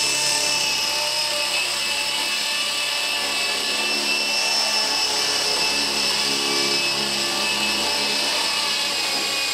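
Small electric RC helicopter flying, its motor and rotor giving a steady high-pitched whine. The pitch sags slightly near the end.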